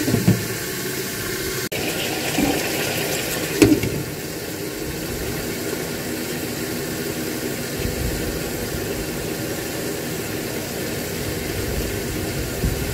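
Marinated pork steaks sizzling and bubbling in oil in an electric multi-cooker pot under a glass lid: a steady frying hiss.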